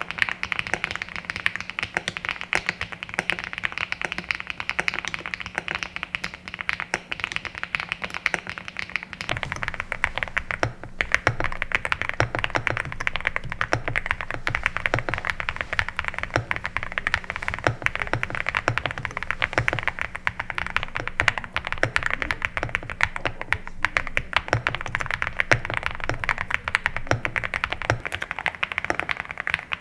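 EVO80 mechanical keyboard with factory-lubed switches being typed on continuously, a fast, dense run of keystroke clacks. Partway through, around a brief pause, the keystrokes take on a deeper, fuller low end.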